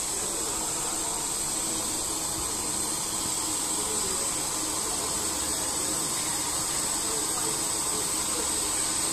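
GooDa TH-460NC duplex milling machine face-milling both sides of a steel block at once with its twin cutter heads: a steady cutting hiss with a high whine.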